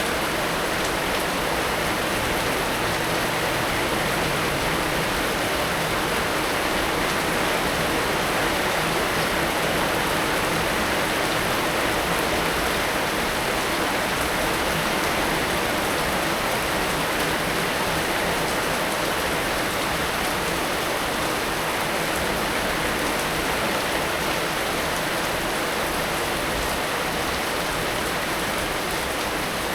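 Heavy rain falling steadily, a continuous even hiss of drops on surfaces.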